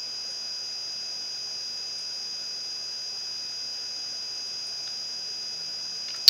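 Steady electronic hiss with a constant high-pitched whine, like recording-chain noise, and one sharp click near the end.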